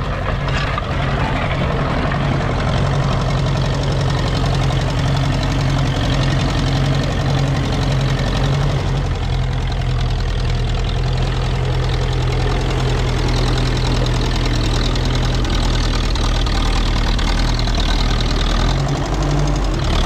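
Ferguson TE-20 tractor's four-cylinder TVO engine running steadily.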